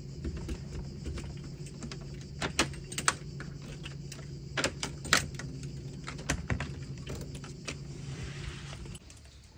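A steady low hum with a series of sharp clicks and light jingling at irregular times; the hum cuts off about nine seconds in.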